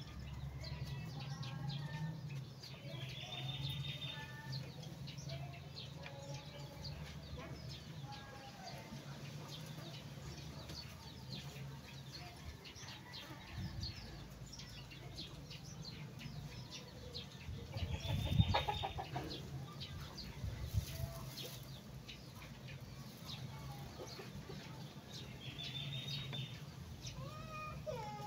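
Chickens clucking and calling off and on, with a louder call about eighteen seconds in, over a low steady hum.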